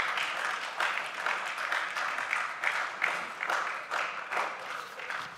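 Applause: many people clapping in a parliamentary chamber, dying away near the end.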